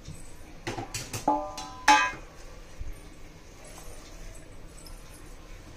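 Stainless steel utensils knocking together: a few light knocks, then two sharp clinks about a second and a half and two seconds in that ring briefly, the second the loudest. Between them, faint handling sounds of a hand working dough in a steel bowl.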